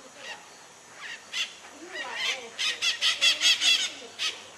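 Maritacas (parrots) calling with short harsh squawks: a few scattered calls, then a quick run of about six in a row from about two and a half seconds in.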